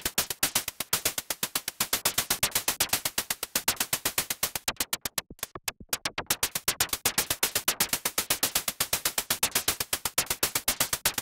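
Arturia JUN-6 V software synthesizer (a Roland Juno-6 emulation) playing its "Noise Pucks Seq" factory preset: a fast, even sequence of short, noisy hits. The pattern thins out briefly about five seconds in, then carries on at the same pace.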